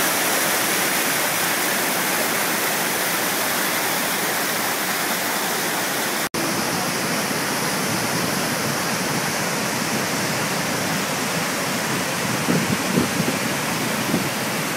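Waterfall pouring in a steady, loud rush of water, cut off briefly about six seconds in, then resuming much the same.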